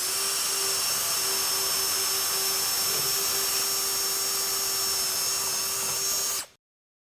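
Power drill boring into wood with an Irwin 4X flat (spade) bit, running at a steady speed. It cuts off abruptly about six and a half seconds in.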